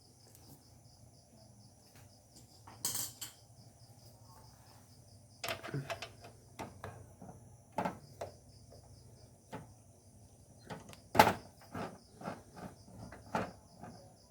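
Irregular clicks, knocks and clatter of hands working on a desktop computer's system unit to take out its hard disk, with a sharper knock about 3 seconds in and the loudest one about 11 seconds in. Crickets chirr steadily and faintly underneath.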